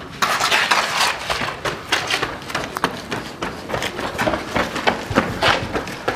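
Several people running hard on pavement: quick, irregular footfalls and shoe scuffs that start abruptly and keep going.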